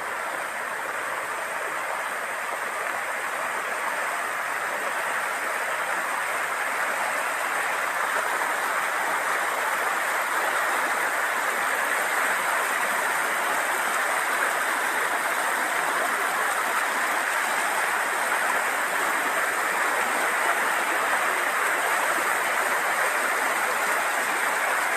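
Muddy floodwater rushing in a fast, churning current across flooded ground: a steady rushing noise that grows a little louder over the first several seconds.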